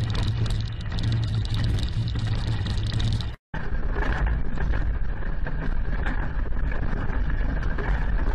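Continuous rumbling and rattling from fixed outdoor cameras shaking in a strong earthquake. The sound cuts out for an instant about three and a half seconds in, then carries on as a deeper, steady rumble.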